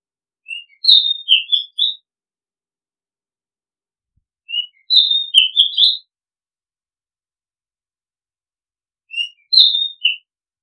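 Oriental magpie-robin singing: a short phrase of clear whistled notes, given three times with pauses of about three seconds between.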